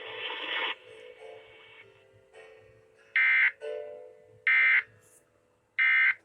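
Emergency Alert System end-of-message signal: three short bursts of digital data tones, about 1.3 seconds apart, marking the end of the alert test. Faint steady low tones sound underneath.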